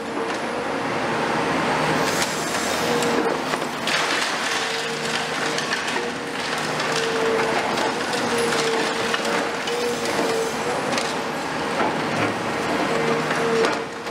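Caterpillar 336F long-front demolition excavator crushing a concrete floor slab with a hydraulic crusher jaw: concrete cracking and crumbling and rubble pouring down. Under it runs the machine's steady engine and hydraulic drone, with a held tone that comes and goes.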